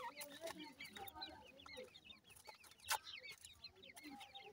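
Grey francolin chicks peeping nonstop in quick, high, falling chirps, with soft low clucks from the adult bird. One sharp click stands out about three seconds in.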